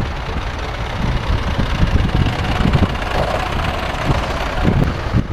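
Vintage tractor engine running steadily, with wind rumbling on the microphone.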